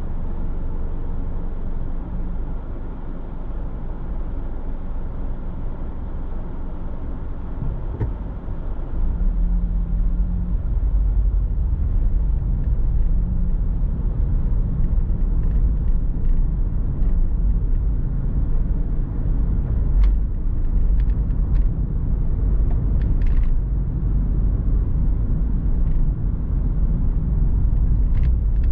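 A car's steady low road and engine rumble while driving, louder from about nine seconds in, with a few faint ticks in the second half.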